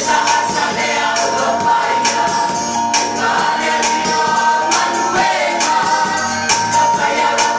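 A group singing a gospel song, with tambourines jingled and struck in a steady beat over the music.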